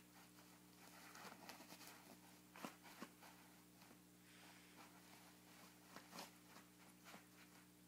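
Faint rustling and tearing of a paper towel roll as a cat bites and claws it, with scattered crinkles, the sharpest about two and a half seconds in and again around six seconds in.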